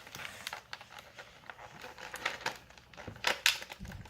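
Scattered small clicks, taps and rustling as plastic toy play pieces are handled, several sharp taps bunched together past the middle.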